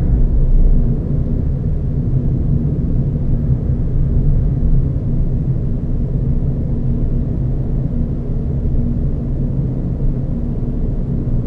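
Renault Zoe electric car driving, heard as a steady low rumble of tyre and road noise.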